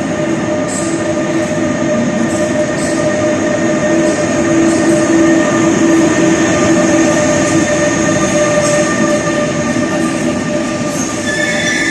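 Electric locomotive-hauled passenger train rolling slowly past along a platform, echoing under the concrete roof of an underground station. Its wheels rumble on the rails and a steady whine of several held tones runs through it. The sound is loudest about halfway through as the locomotive passes, then the coaches roll by.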